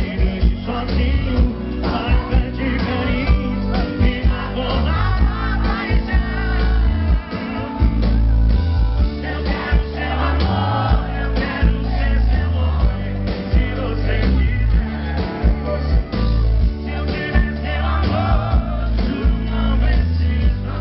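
Sertanejo song playing: male vocals over a band with a steady heavy bass beat.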